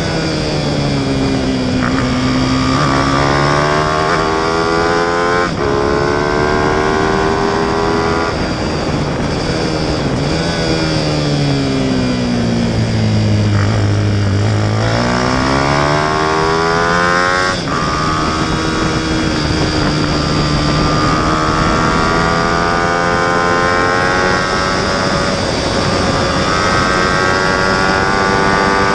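Racing motorcycle engine heard from on board at race pace, revving up through the gears with a sudden drop in pitch at each upshift. About eight seconds in the revs fall away steadily as it slows for a corner, bottoming out around fourteen seconds, then climb hard again with further shifts.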